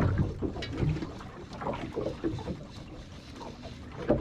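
Water sloshing against a small boat's hull, with wind buffeting the microphone in low rumbling gusts.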